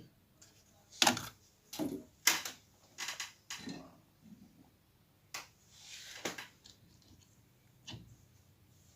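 Small parts handled on a workbench: a string of separate clicks and knocks, about eight in all, with a lull in the middle.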